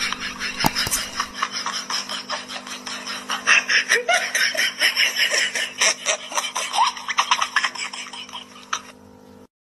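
People laughing hard in rapid bursts over a steady low hum; the laughter cuts off abruptly near the end.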